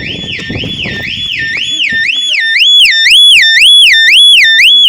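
Volvo S60's alarm siren wailing, sweeping up and down about twice a second. It grows louder about two seconds in and sounds during a test of the siren after its repair.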